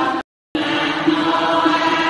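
Buddhist devotional chanting, sustained and steady. It cuts out abruptly for about a third of a second shortly after the start, then resumes.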